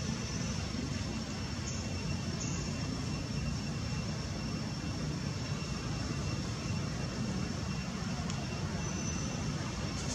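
Steady low rumble of outdoor background noise, with faint thin high tones held steady over it.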